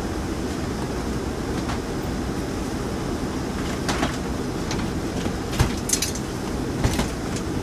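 Steady low mechanical rumble, with a few sharp clicks and knocks in the second half.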